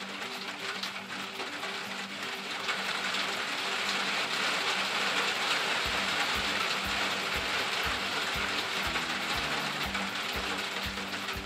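Steady rain falling, with background music over it: a repeating low melody, joined about halfway through by a low beat roughly twice a second.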